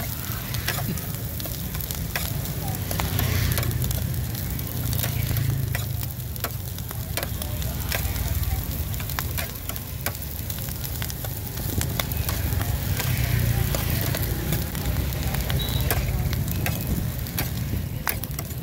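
Corn kernels with shrimp sizzling in butter in a wide metal pan while a metal spatula stirs them, with frequent sharp clicks and scrapes of the spatula against the pan. A low steady rumble runs underneath.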